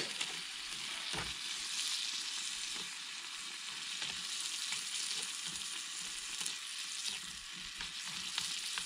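Rice and meat sizzling in a frying pan on a camping gas stove: a steady high sizzle, with the short scrapes and clicks of a spoon stirring it in the pan.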